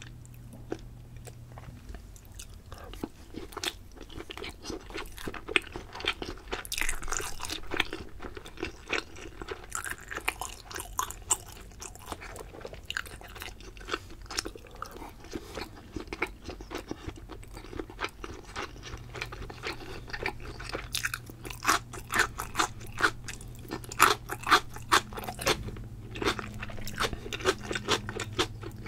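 Close-miked chewing and biting of sushi, shrimp nigiri among it: a steady run of wet mouth clicks and short chewing strokes that grow thicker and louder in the last few seconds.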